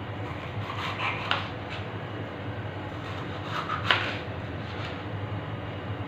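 Knife cutting and scraping a capsicum (bell pepper), a few short crunching scrapes over a steady low hum.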